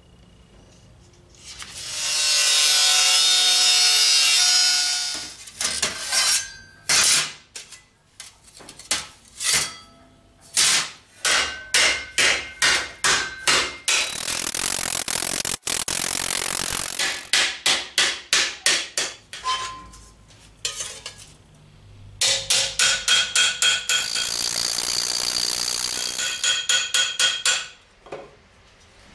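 Runs of hand-hammer blows on thin steel plate, each strike ringing briefly, as the plate is shaped over a wooden stump and a steel ball stake. Three stretches of a loud, steady hissing power tool working the steel come between the runs of blows.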